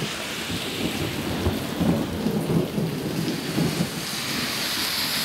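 Heavy rain falling steadily, with thunder rumbling through it, loudest about midway.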